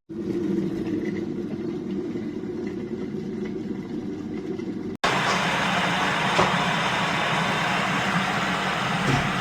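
Aigostar Adam 30GOM glass electric kettle heating water: a steady low rumble, then, after a cut about five seconds in, a louder, fuller hiss of water coming to the boil.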